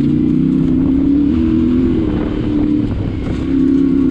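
Yamaha Ténéré 700's parallel-twin engine running under way at a steady moderate speed; the note eases off a little past halfway and picks up again near the end.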